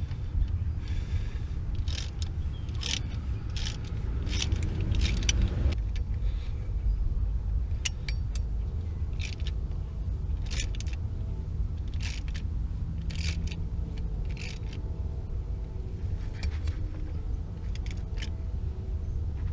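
Metal hand tools and bolts clinking irregularly during work on a Jeep's rear driveshaft: scattered sharp metallic clicks, about one or two a second, over a steady low rumble.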